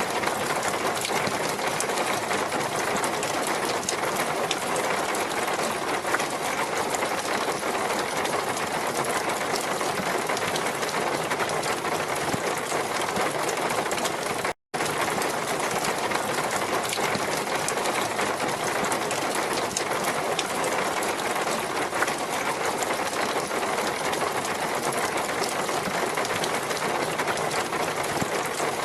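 Steady rushing water noise with a fine, dense crackle, cutting out to silence for a split second about fifteen seconds in.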